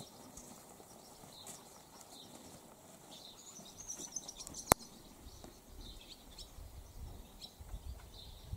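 Quiet outdoor ambience with small birds chirping a few times near the middle, one sharp click just under five seconds in, and a low rumble in the second half.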